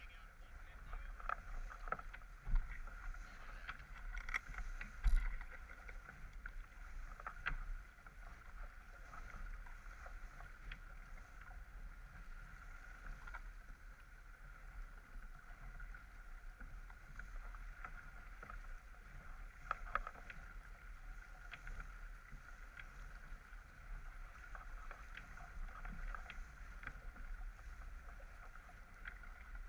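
Water rushing and splashing along the hull of a J/24 sailboat moving fast while heeled, with wind buffeting the microphone. A few short knocks, the loudest about five seconds in.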